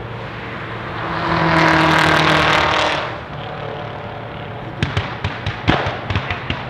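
A modified car passing at speed, its engine and exhaust note building to a peak about two seconds in and then fading. In the last couple of seconds comes a quick, uneven run of sharp cracks.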